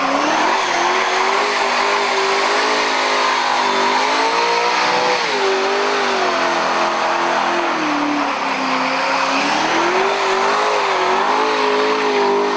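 A car engine held at high revs during a burnout, its pitch rising and falling as the throttle is worked, over the steady screech and hiss of the rear tyres spinning against the pavement.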